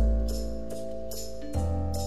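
Background music: held keyboard chords over a deep bass note that changes about one and a half seconds in, with a light ticking beat about three times a second.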